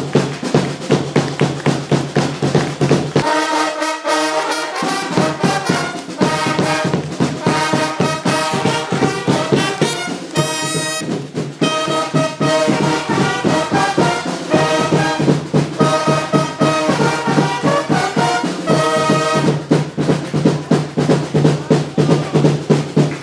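Fanfare band playing a march: a steady drumbeat throughout, with fanfare trumpets joining in on the melody about three seconds in and dropping out near the end, leaving the drums alone.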